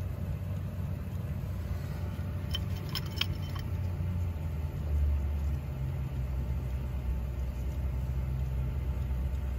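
Jandy LRZ pool heater running with a steady low hum while its igniter glows, with a few light metallic clinks about three seconds in. The gas valve gives no click and stays shut: a defective gas valve.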